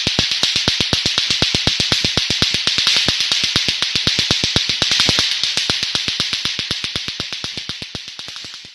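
Lato-lato clacker balls clacking rapidly and evenly, about seven clacks a second, over a steady high-pitched hiss. The clacking fades toward the end.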